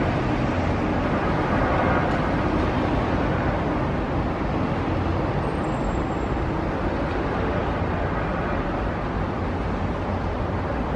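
Nankai 8300 series electric train running slowly toward the platform, a steady rumble of its wheels and running gear on the rails.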